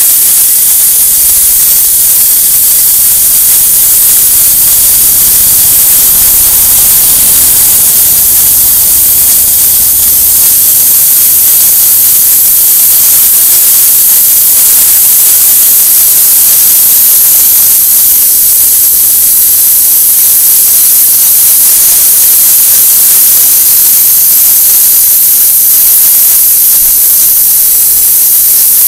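High-pressure water jet from a DEKTON DK-HPW3500W industrial pressure washer blasting old, hardened cement off a concrete surface: a loud, steady hiss.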